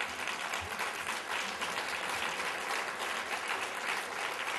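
Audience applauding: many people clapping together, a steady, dense clatter of hands.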